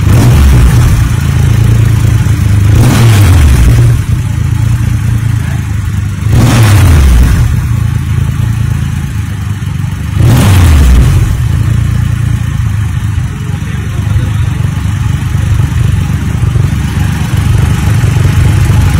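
Triumph Rocket 3's inline three-cylinder engine being blipped four times in the first eleven seconds or so, each rev falling back to idle, then idling steadily.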